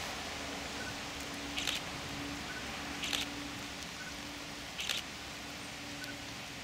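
Digital SLR camera firing its shutter three times, about every one and a half seconds, each shot preceded by a short high focus-confirmation beep.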